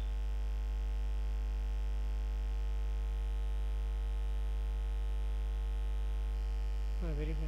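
Steady electrical hum with a stack of even overtones, typical of mains hum picked up by a computer microphone setup. A brief voice sound comes in near the end.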